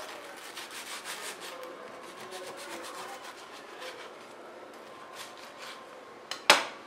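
Kitchen knife sawing through a crisp, butter-toasted bread sandwich on a wooden board, the toasted crust crackling and scraping under repeated strokes. One sharp knock near the end.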